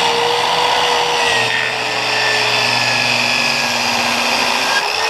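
Harbor Freight professional-series 7¼-inch corded circular saw, fitted with a 24-tooth Freud Diablo framing blade, running under load as it rips through a thick wooden sheet. It is a loud, steady whine with no stalling, then it eases off right at the end as the cut finishes.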